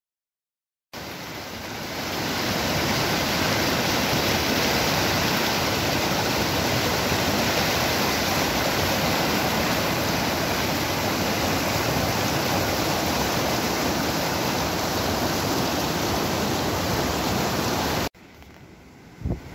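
Whitewater rushing over a small rocky river cascade, a loud steady rush that starts about a second in, swells briefly, and cuts off abruptly near the end.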